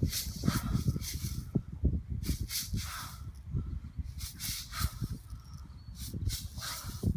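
Wind buffeting the microphone, with uneven rumbling and bursts of hiss coming and going about every second.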